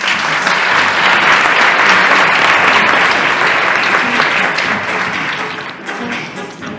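Theatre audience applauding, swelling in the first second and dying away after about five seconds as music comes in.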